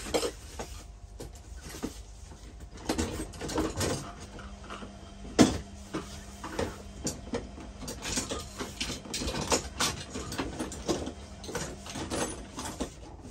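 Irregular clicks, knocks and rattles of plumbing fittings and hand tools being handled, with one sharper knock about five seconds in. A faint steady low hum runs through the middle stretch.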